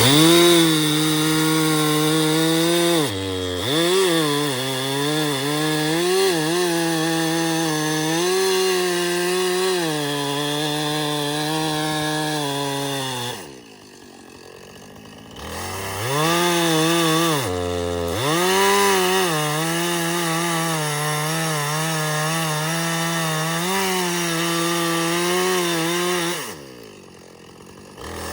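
Gas chainsaw running at full throttle as it cuts wood, its pitch sagging and recovering under load. It drops back to idle twice, about halfway through and near the end, and revs up again each time.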